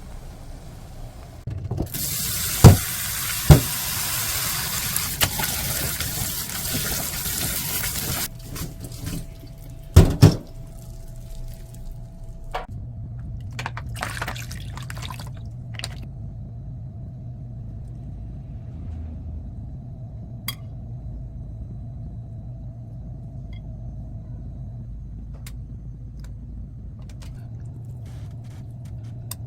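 A kitchen tap runs into a sink for about six seconds, with two sharp knocks while it runs. Two more loud knocks come shortly after it stops, then light scattered clicks.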